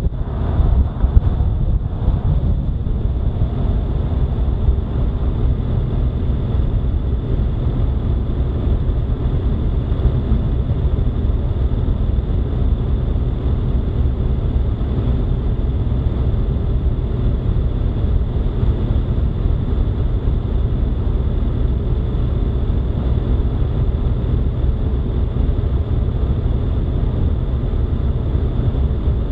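Steady road and wind noise of a vehicle driving at speed on a paved highway, heaviest in the low end, with a faint steady high whine over it.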